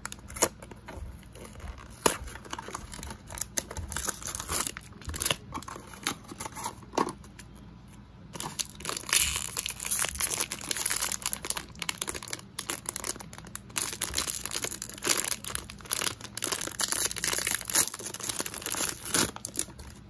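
Small cardboard toy box being handled and its flaps pulled open, with scattered taps and scrapes, then from about eight seconds in a plastic blind bag crinkling and tearing open in dense crackles.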